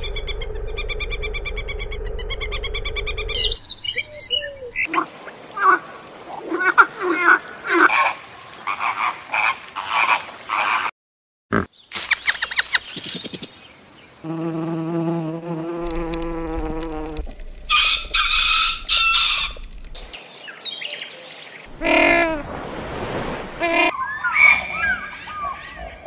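A run of different animal calls in short segments, changing every few seconds: a buzzing pitched call, then rapid chirps, then a held droning cry, then rising and falling calls.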